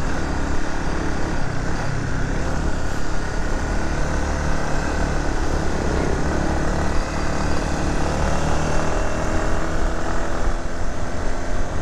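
Motorcycle running steadily on the move, heard from on the bike: a low engine hum under an even rush of wind and road noise.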